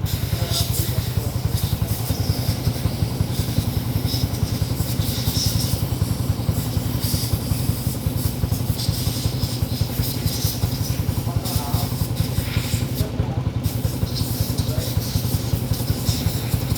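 Yamaha Mio i 125 scooter's single-cylinder four-stroke engine idling steadily with a fast, even pulse and some light mechanical clatter, running after its top-end overhaul.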